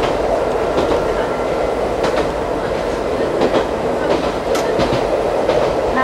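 Ichibata Electric Railway 2100 series electric train running at speed, heard from inside the car. It makes a steady rumble of wheels on rails, with scattered clicks and knocks from the track.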